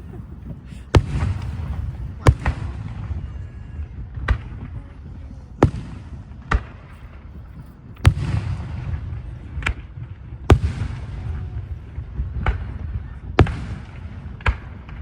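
Aerial fireworks exploding: a string of sharp bangs about every second or so. About one second in and again about eight seconds in, a bigger shell bursts with a deep boom followed by a long rumbling crackle.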